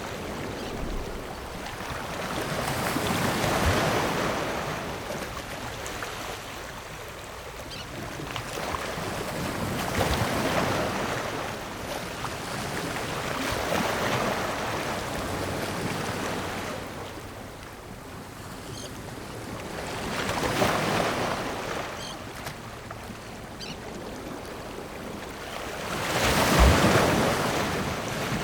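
Ocean waves breaking on rocks: a hiss of surf that swells and falls away, with a wave crashing every five or six seconds. The loudest break, with a low thud, comes near the end.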